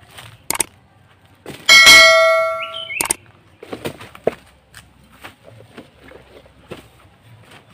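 A single loud metallic clang about two seconds in, ringing on for about a second, among scattered knocks and rustling as plastic stools are shifted in the grass.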